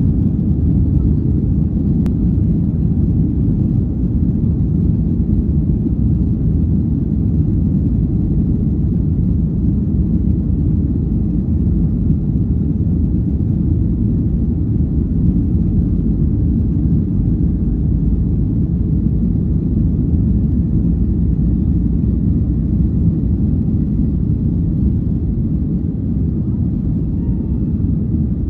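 Cabin noise inside a Boeing 737 during takeoff: the steady, deep rumble of its jet engines heard from a window seat. A single faint click sounds about two seconds in.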